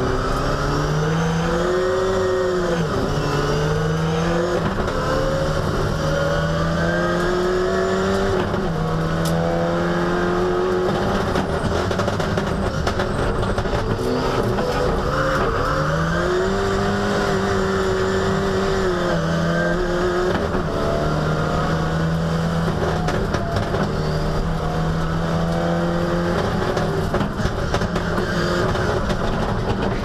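Ford Sierra Cosworth rally car's turbocharged four-cylinder engine at racing speed, its revs climbing and dropping again and again through the gears.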